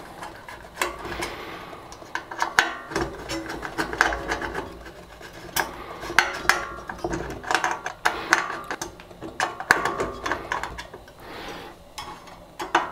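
Irregular metallic clicks, knocks and rattles of a sheet-metal 3D-printer bed mount being handled and shifted on its Z-carriage, with a short ring after many of the clicks.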